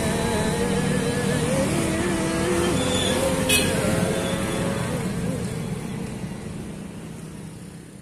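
Motor vehicle engine running steadily, with a wavering pitched tone above it and a brief sharp click about three and a half seconds in; the whole fades out over the last few seconds.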